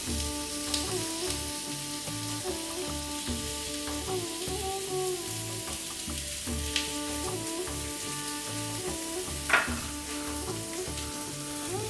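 Chicken-mince kebabs frying in hot oil: a steady sizzle, with a few sharp clicks, the loudest one late on. Background music with a steady bass rhythm plays along.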